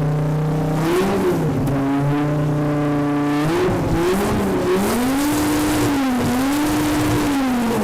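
Car engine revved through its exhaust: held at a steady raised pitch for about three and a half seconds, then blipped up and down in several rises and falls. The exhaust has a large-bore pipe to the rear with a silencer in between.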